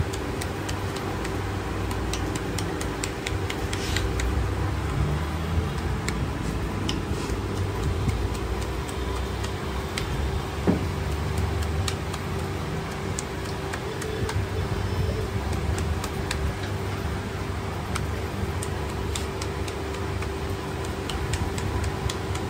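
Steady background hum and din with scattered light clicks, as a knife cuts melon into chunks against a gloved hand and the pieces drop into a steel bowl.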